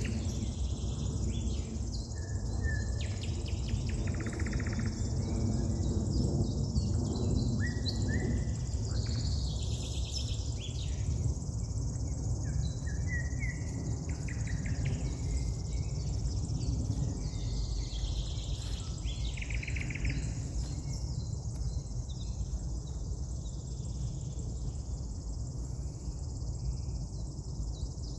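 Several songbirds singing and calling, short chirps and trills, over a steady low background rumble.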